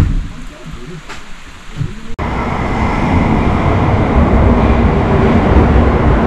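Faint water trickling into a wooden hot-spring tub, then a sudden switch about two seconds in to loud, steady train noise on a Shinkansen bullet-train platform.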